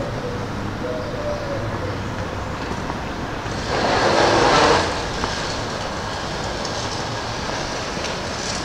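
Steady rumble of street traffic, with a faint gliding whine near the start and a loud rushing hiss lasting about a second, around four seconds in.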